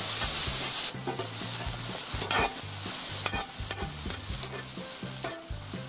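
Sliced champignon mushrooms sizzling in hot pork fat in a cast-iron pan, stirred with a metal spatula that scrapes and clicks against the pan. The sizzle is loud for about the first second, then drops suddenly to a quieter hiss with scattered scrapes. The pan is very hot, so the mushrooms fry rather than stew in their own juice.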